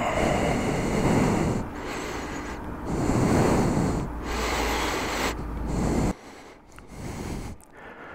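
Rushing noise close on the microphone in surges about a second apart, with a low rumble that cuts off about six seconds in.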